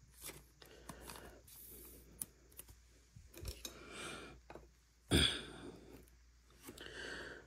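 Trading card handled by hand: slid into a clear plastic penny sleeve with soft rustling and light clicks, then one sharper knock about five seconds in.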